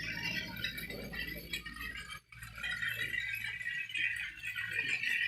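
Toy train running, its motor and wheels making a steady clattering rattle, with a brief dropout about two seconds in.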